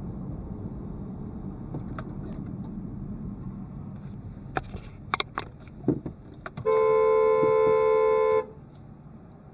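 Car horn sounded in one long, loud blast of nearly two seconds, after a few sharp clicks. Tyre and road rumble fades as the car slows to a stop.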